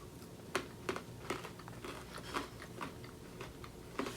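Someone chewing a piece of Skor bar, hard butter toffee coated in milk chocolate: irregular crisp crunches, a few to a second.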